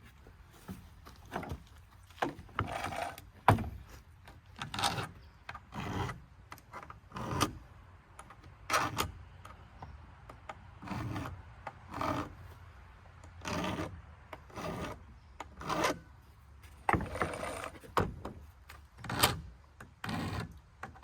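Hand file rasping in short, even strokes, about one a second, across a chainsaw chain's depth gauges (rakers). The rakers are being filed down so the new chain, which cut poorly out of the box, takes a deeper bite.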